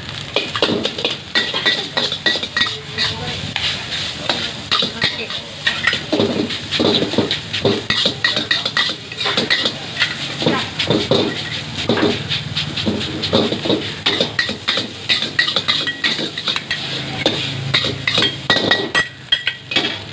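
Metal wok ladle and spatula scraping and clanking against a steel wok as fried rice is stir-fried, in quick irregular strokes, some with a short metallic ring. A gas wok burner runs steadily underneath.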